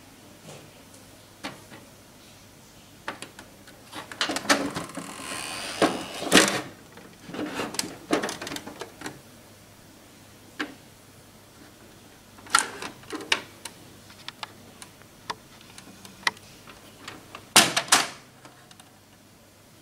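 Plastic clicks, knocks and a brief scrape from a Brother DCP-1510E laser multifunction printer's housing as its scanner unit is lifted and its top cover opened. The sounds come in scattered bursts, with the loudest clatter near the end.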